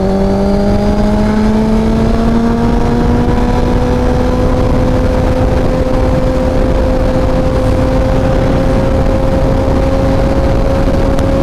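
Suzuki GSX-R 1000's inline-four engine pulling steadily at highway speed, its pitch rising gently over the first few seconds and then holding level, under heavy wind and road rush on the on-bike microphone.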